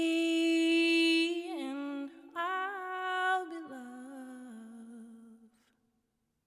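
A woman's voice singing a slow wordless melody: a long held note, then a phrase that slides and steps lower and fades out about two-thirds of the way through.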